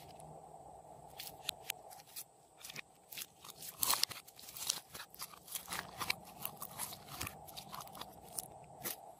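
Glossy slime squeezed and kneaded by hand, with irregular small crackling pops and clicks of trapped air. The pops are loudest about four seconds in, as the slime is pressed out of a squeeze bottle.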